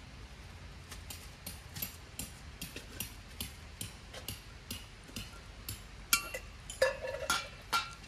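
A run of light clicks, about two a second, followed near the end by four louder metallic clinks that ring briefly.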